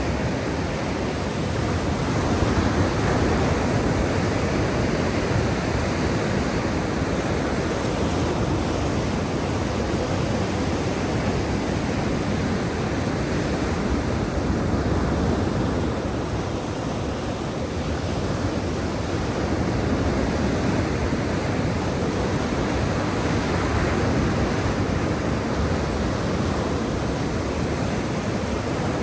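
Black Sea waves washing on the shore: a steady rushing wash of surf that swells and eases gently every few seconds.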